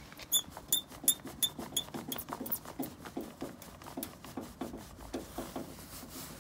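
Screwdriver backing screws out of the sheet-metal inner plate of a first-gen Toyota Tacoma tailgate: a steady series of sharp clicks, about three a second. For roughly the first two seconds each click rings with a high metallic note.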